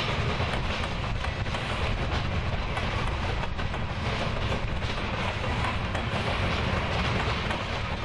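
Freight train rolling steadily over the rails, with a low rumble and a quick run of wheel clicks on the rail joints.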